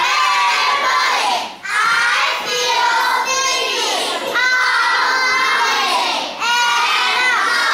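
A class of young children chanting aloud in unison, five long drawn-out words one after another with short breaks between them.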